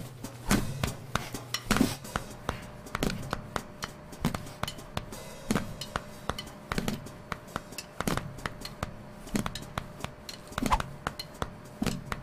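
Drum kit struck in loose, irregular hits a fraction of a second apart, over a low steady hum.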